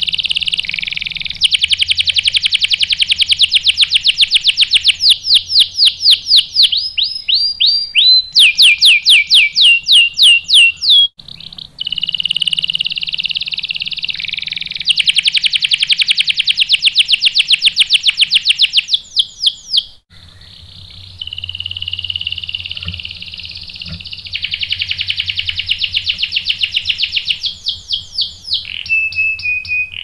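Domestic canary singing a long rolling song: fast trills of rapidly repeated notes, a run of slower, louder sweeping notes partway through, and brief breaks about eleven and twenty seconds in.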